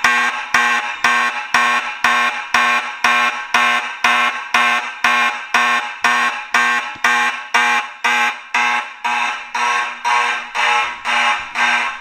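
CPG 4050D fire alarm horn sounding in alarm, coded to fast march time at 120 beats a minute: evenly spaced short buzzing blasts, about two a second. Its tone is raspy.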